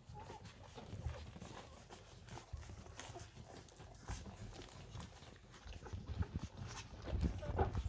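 One-week-old golden retriever puppies nursing at their mother: small squeaks and grunts over soft clicks and rustling, getting louder near the end.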